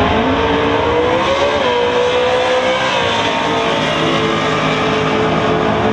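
Two drag cars, one of them a 1982 Ford Mustang GT, launching off the starting line and accelerating hard down the strip. The engine note climbs, dips at a gear shift about one and a half seconds in, then carries on at a steady pitch.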